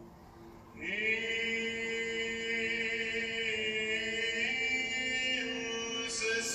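Background music: choral chant in long held notes, coming in about a second in after a quiet moment, with the notes changing pitch near the middle and again near the end.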